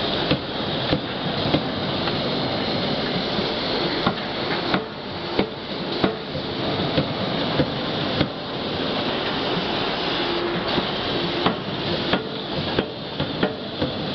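Forge-shop machinery: a steady industrial din broken by about a dozen sharp metal blows at irregular intervals, from a CNC die-forging hammer and presses working hot connecting-rod blanks.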